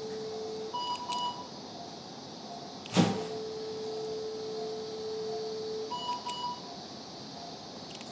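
LigaSure vessel-sealing generator tones during tissue sealing: a steady tone while energy is delivered through the jaws, broken twice by a short higher double tone that signals the seal is complete. A single sharp click about three seconds in, between the two seal cycles.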